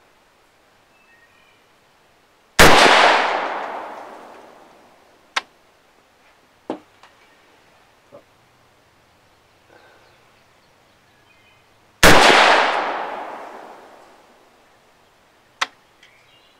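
Two shots from a Smith & Wesson AR-15 firing 55-grain steel-cased 5.56 ammunition, about nine seconds apart, each a sharp crack that rings out and dies away over about two seconds. Several much fainter sharp cracks fall between and after them.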